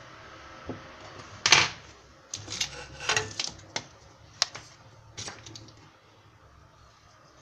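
Irregular sharp clicks and knocks, about a dozen, the loudest about a second and a half in, dying away before the last couple of seconds.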